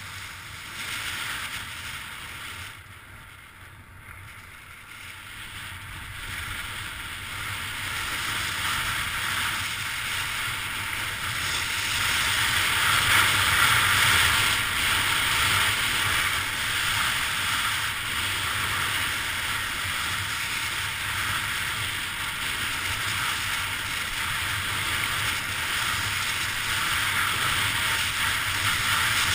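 Skis running fast over groomed snow, a steady sliding hiss and scrape mixed with wind on the microphone, growing louder over the first dozen seconds and then holding steady.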